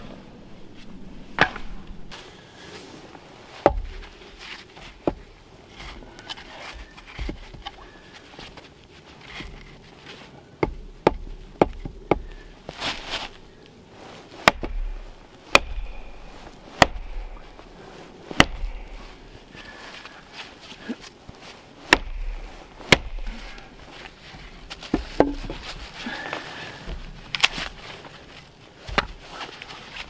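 Wood being chopped: sharp strikes at irregular intervals, about one every second or two, some with a dull low thud.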